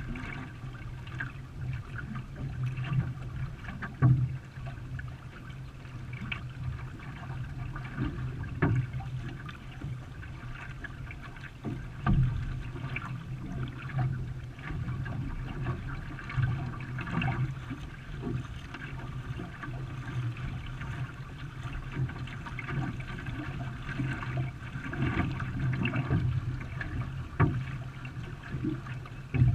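Water splashing and trickling around a racing canoe as it is paddled, with irregular louder splashes or knocks every few seconds over a steady low hum.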